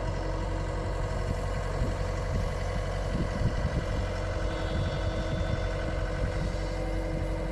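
Gehl V270 skid steer's Yanmar diesel engine idling steadily, with a few light knocks about halfway through.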